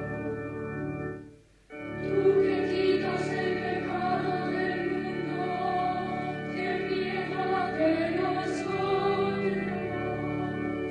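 Music with a choir singing over sustained accompaniment; it fades out briefly about a second and a half in and a new passage begins.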